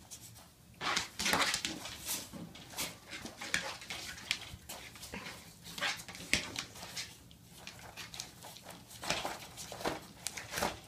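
A mini pig nosing and biting at a hanging cardboard-and-paper piñata stuffed with food: irregular rustling and crinkling of the paper and cardboard, with occasional sharp knocks as the piñata swings. The pig's grunts and snuffles come through between them.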